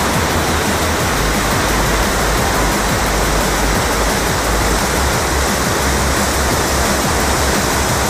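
Waterfall plunging into a rock pool: a steady, unbroken rush of falling and churning water.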